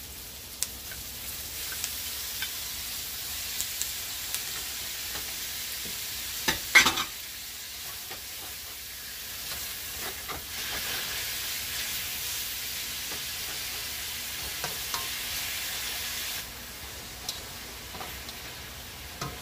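Strips of raw beef sizzling in hot oil with onions in a nonstick wok, stirred with a plastic slotted spatula that scrapes and clicks against the pan. A single sharp knock about seven seconds in is the loudest sound; the sizzle swells about ten seconds in and eases a few seconds before the end.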